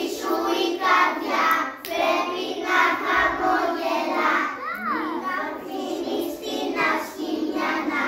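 Young children singing a song together in held, continuous phrases, with one voice briefly sliding in pitch about halfway through.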